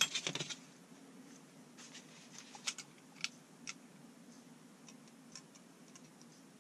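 Small metal clicks and taps as the head of a vintage SK 1/2-inch ratchet is handled and worked with pliers during reassembly. A quick cluster of clicks comes at the start, then scattered single clicks, over a faint steady low hum.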